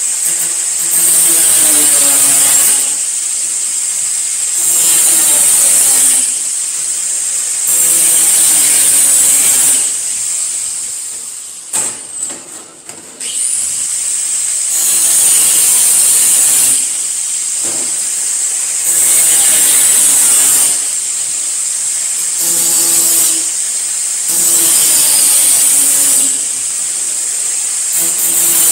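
Handheld angle grinder running and biting into pieces of sheet steel in repeated passes of about two seconds each, the motor pitch sagging under load and rising again between them. About halfway through it goes briefly quiet, then starts up again.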